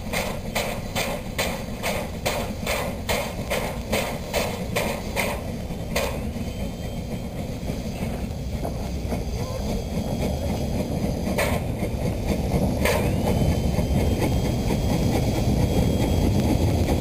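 Narrow-gauge steam locomotive approaching: steady exhaust chuffs, about three a second, stop about six seconds in. After that the train's low rumble grows louder as it comes near.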